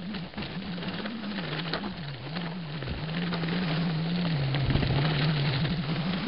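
2011 Specialized Rockhopper mountain bike rolling fast down hard-packed dirt singletrack: a steady rush of tyre noise with constant small clicks and rattles from the bike and trail grit, over a low wavering hum.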